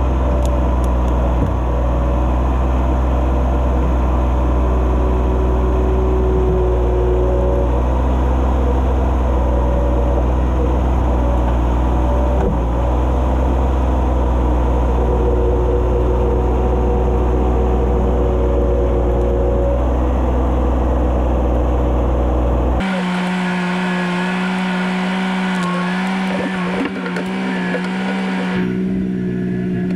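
John Deere 2210 sub-compact tractor's three-cylinder diesel engine running steadily under load as its front loader works a rotted apple stump out of the ground. About three-quarters of the way through, the deep drone cuts off abruptly, leaving a lighter, higher-pitched engine hum.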